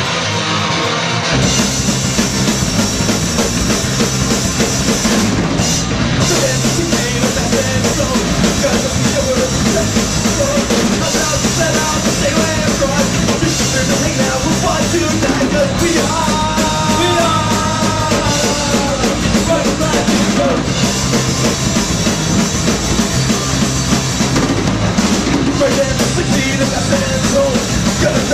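Punk rock band playing live: electric guitar, bass guitar and drum kit. A guitar is heard alone at first, then the drums and bass come in about a second in and the full band plays on loud and steady.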